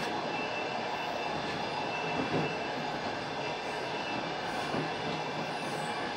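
Passenger train running on the rails, heard from a passenger's seat as a steady rumble of wheels and carriage. There is a faint thin high squeal and a single slightly louder knock about two seconds in.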